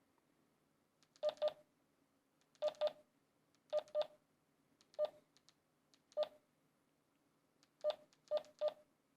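Keypad beeps of a handheld DMR radio as a text message is typed in by multi-tap: short beeps at one steady pitch, in quick pairs, single beeps and a closing triple, about eleven presses in all.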